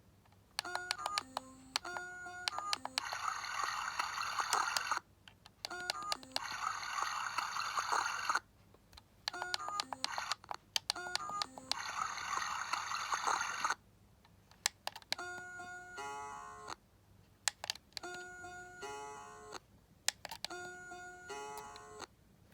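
Electronic lullaby tune from a Slumber Buddies plush elephant's sound unit playing on low batteries. Short tinny notes start and break off in uneven phrases, with three stretches of hissy noise in the first half.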